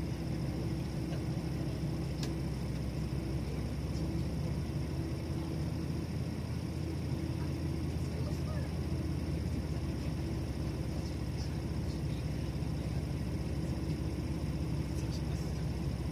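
Steady low mechanical hum of a stationary vehicle, holding one pitch without rising or falling.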